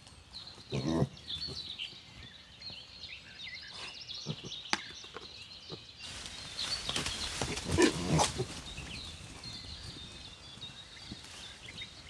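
Pigs grunting now and then, louder in the second half, with small birds chirping throughout.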